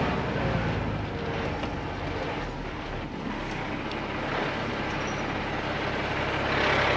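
Mercedes-Benz Unimog U1700L ex-army truck driving along a dirt bush track: a steady diesel engine hum with tyre and body noise, growing a little louder near the end.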